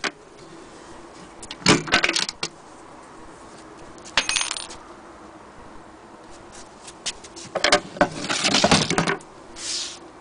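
Handling of a wooden sewing-machine carrying case and its metal fittings: three clusters of sharp metallic clinks and rattles a few seconds apart, the last the longest and loudest. A brief hiss follows near the end.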